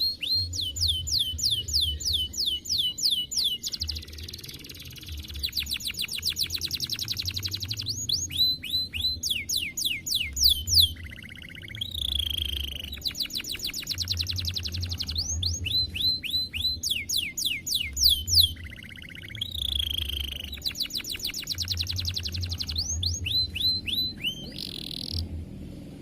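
Domestic canary singing a long song of rapid trills: runs of quick, repeated whistled notes that switch from one trill to the next every second or two, with a few short pauses.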